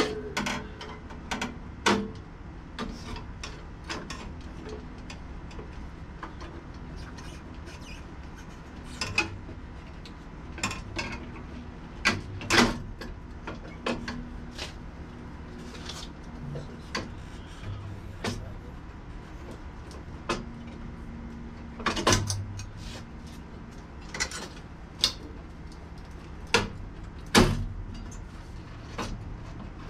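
Irregular metallic clinks and knocks of a tour-pack mounting rack being handled and fitted onto a Harley-Davidson Street Glide's rear fender, with a few louder knocks, the loudest near the end.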